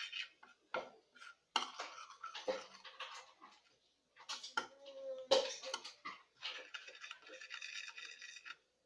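A utensil scraping and clicking against a dish while a thick starch-and-detergent slime mixture is stirred, in irregular scrapes with short pauses, a brief squeak about halfway through and a longer raspy scrape near the end.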